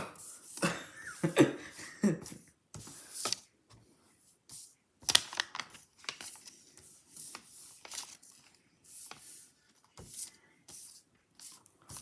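Small magnet balls clicking and snapping together as they are handled, with irregular sharp clicks and light rubbing and scraping in between.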